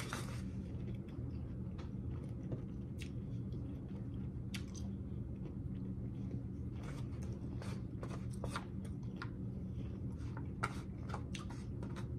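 Close-miked chewing and crunching of a raw vegetable salad of beets, cucumber and onion, with scattered crisp crunches that come more often in the second half, over a steady low hum.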